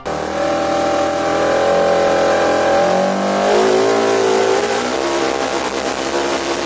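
Polaris RZR 900 Turbo UTV engine running hard under load over a noisy rush. Its pitch climbs about two to three seconds in, then drops and holds a steadier note.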